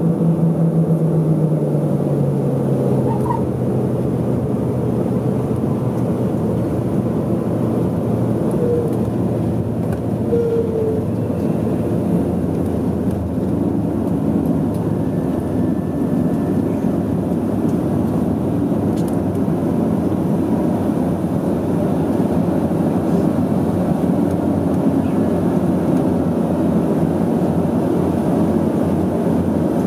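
Turboprop airliner's engine and propeller heard from inside the cabin after landing: the propeller drone drops in pitch over the first two seconds, then a loud, steady rumble as the plane rolls down the runway.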